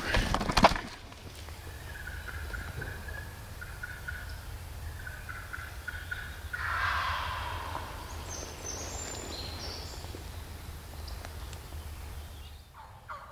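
Wild turkey gobbler gobbling: one gobble about seven seconds in and another beginning right at the end. A few footsteps at the very start.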